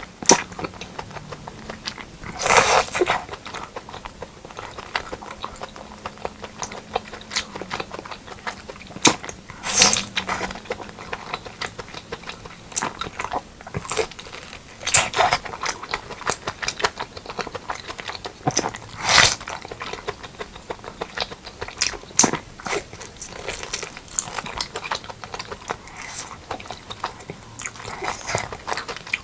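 Close-miked eating of pork leg curry and rice: steady chewing with small wet clicks and smacks, and four louder bites about every four to five seconds.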